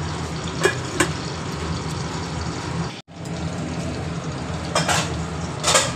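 A pan of mung dal boiling on a gas stove: a steady bubbling over a low rumble, with a few sharp pops of bursting bubbles. The sound cuts out briefly about halfway.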